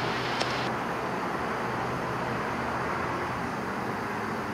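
Steady rushing noise of a police helicopter's cabin heard through the crew's intercom, with a short click about half a second in.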